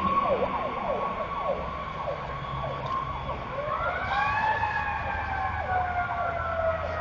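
Emergency vehicle sirens: an electronic siren yelping in rapid falling sweeps, about two a second, for the first few seconds over a steady tone. About three and a half seconds in, a second siren rises in pitch and then slowly falls.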